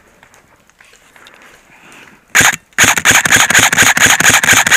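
M4-style airsoft rifle firing on full auto: a short burst a little over two seconds in, then after a brief pause a long continuous burst of rapid, evenly spaced shots.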